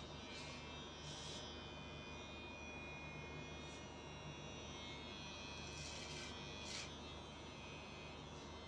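Cordless electric hair clipper running with a steady buzz while cutting hair at the back of the head, with a few short hissy bursts.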